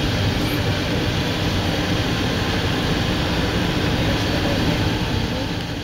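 Steady rumble of a moving car heard from inside the cabin: road and engine noise, loud and even, fading away right at the end.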